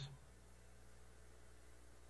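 Near silence: room tone with a faint steady low hum, just after the last word of speech fades at the start.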